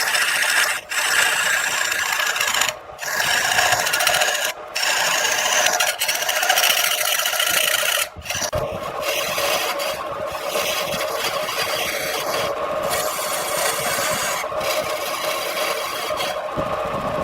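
Wood lathe spinning a workpiece while a hand-held turning tool scrapes and cuts against the wood, a continuous rasping with a steady hum under it. The scraping breaks off briefly a few times.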